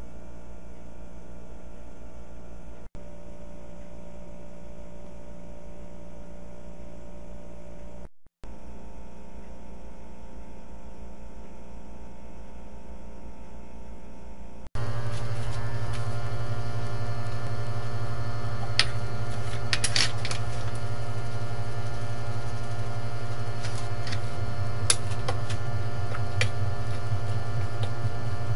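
Steady low electrical hum, which gets louder after a cut about halfway through, with a few light clicks in the second half.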